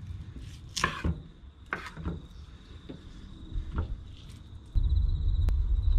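Filleting knife working through skipjack tuna flesh on a wooden cutting board, giving a few separate knocks and scrapes on the board, with a steady high trill of insects behind. A loud low rumble sets in about five seconds in.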